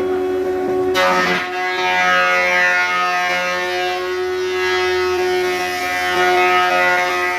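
Old cast-iron thickness planer running with a steady whine. About a second in, a thick solid-wood board is fed in and the cutterhead starts cutting, adding a rough planing noise over the whine as the board passes through.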